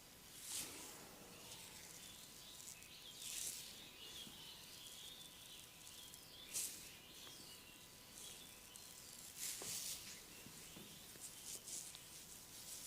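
Massage hands sliding and rubbing over skin: faint swishes about every three seconds.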